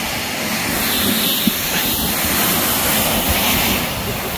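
Plastic sled sliding fast down a snowy hill: a steady rush of the sled hissing over the snow, with spraying snow and wind noise on the phone's microphone. The hiss grows louder about a second in and eases near the end.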